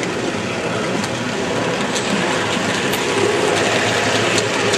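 Model trains running on an exhibition layout, with scattered small clicks from the wheels and track over a steady background of hall noise.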